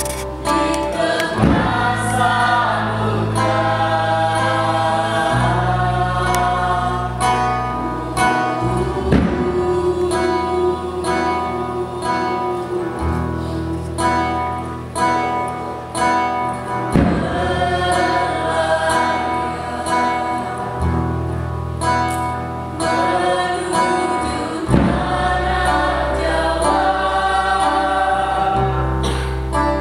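A choir sings over instrumental accompaniment, with low held bass notes that change every few seconds.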